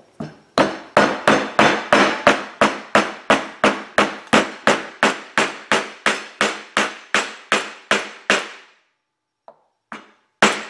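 Hammer tapping a wooden block to drive a thin steel repair sleeve onto a small-block Chevy harmonic balancer hub. About three even, light knocks a second grow gradually quieter and stop, and two more blows come after a short pause near the end.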